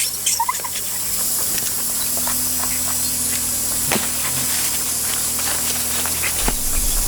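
A steady hiss with scattered light clicks and ticks.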